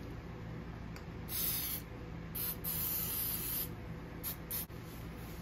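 Aerosol can of Ballistol cleaner-lubricant sprayed onto a pistol barrel in several short hissing bursts, the longest about a second and a half in.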